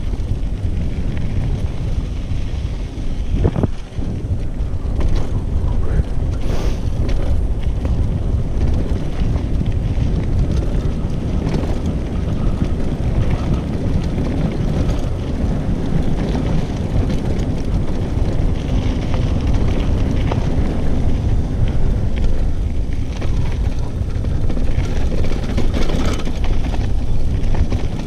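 Wind buffeting a GoPro Hero 5's microphone on a mountain bike riding downhill on a dirt singletrack, a steady heavy rumble mixed with tyre noise on the dirt. A few sharp rattles of the bike come through.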